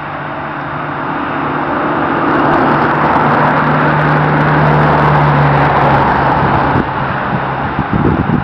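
A motor vehicle going past, its engine and road noise growing louder to a peak in the middle and then falling away.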